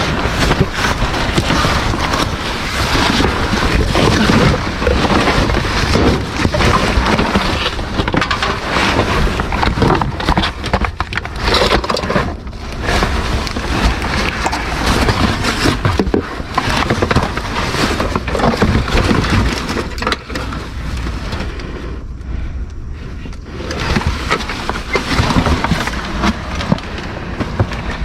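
Dense rustling, crinkling and clattering of trash bags, boxes and discarded items being dug through by hand in a dumpster, with many sharp knocks and a short quieter stretch near the end.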